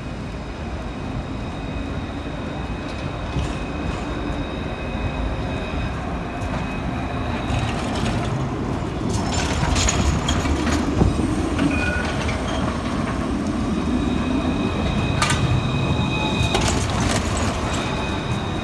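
Luas Red Line trams running past close by on street track. A rumble grows louder towards the middle as one passes, high thin tones come and go, and sharp clicks sound as the wheels cross the rail junction.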